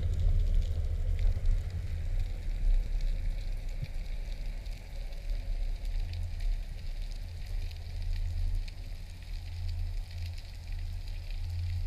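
Underwater ambience picked up by a camera in a waterproof housing: a steady low rumble of water moving past, with faint scattered crackling ticks throughout.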